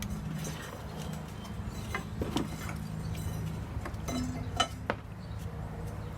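Light metallic clinks and knocks of rusted steel parts being handled, a few separate strikes about two seconds in and again around four to five seconds in, over a steady low hum.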